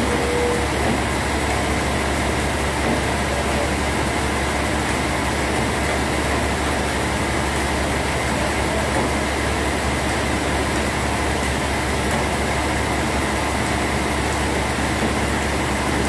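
Sawmill machinery running steadily: a constant mechanical noise with a low hum underneath.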